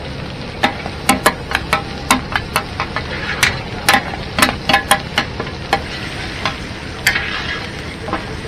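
Stir-frying in a large steel wok: oil sizzling steadily while two steel ladles clack and scrape against the wok in quick, irregular strikes. The strikes come thick from about half a second in, thin out after about six seconds, and the sizzle swells briefly near seven seconds.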